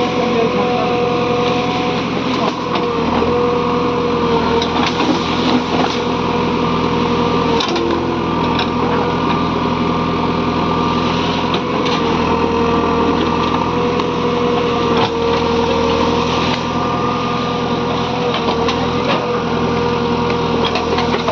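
JCB 3DX backhoe loader's diesel engine running steadily under work, with a wavering whine over the engine note and a few sharp knocks, about eight, twelve and fifteen seconds in.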